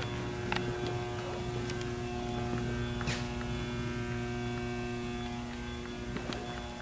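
Steady electrical hum made of several constant tones at once, with a sharp click about three seconds in.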